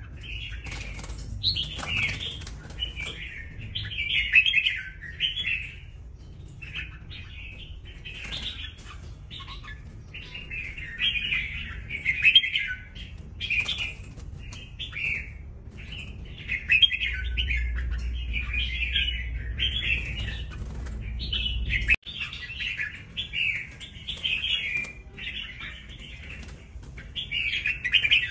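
Red-whiskered bulbuls singing in a wire cage: short, bright warbled phrases one after another with brief pauses, the competitive display song of young wild-caught males. A flutter of wings comes midway as a bird flies across the cage.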